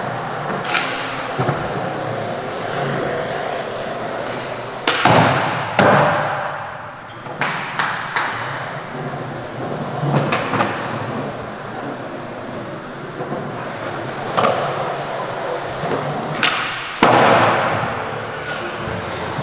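Skateboard wheels rolling on smooth concrete, broken by sharp board pops, landings and slaps. The loudest come about five, six and seventeen seconds in, each ringing on in the echo of a large hall.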